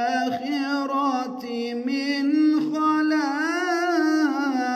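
A man reciting the Quran in melodic tilawa style, holding long drawn-out notes with ornamented rises and falls in pitch.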